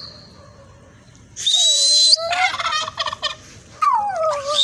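Domestic turkey gobbling, a loud rattling call about a second and a half in, followed by more calling near the end.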